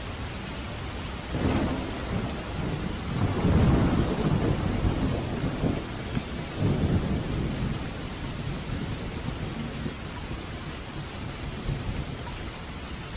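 Steady light rain, with a roll of distant thunder rumbling in about a second and a half in, swelling twice and dying away after about eight seconds.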